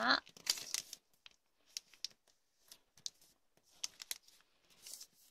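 Origami paper rustling and crackling as a narrow strip is folded in half lengthwise and the crease pressed flat with the fingers, in short scattered crackles.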